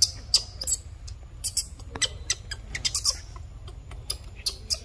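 Newborn monkey squeaking: about a dozen short, sharp, high-pitched squeaks in quick, irregular succession.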